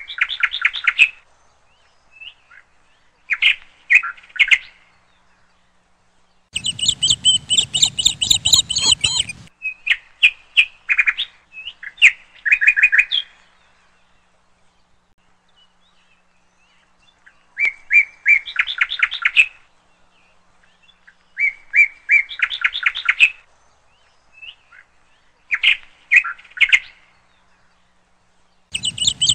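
Bird chirping in short bursts of rapid, trilled notes with silent pauses between them, and a longer, fuller run of chirping about seven seconds in.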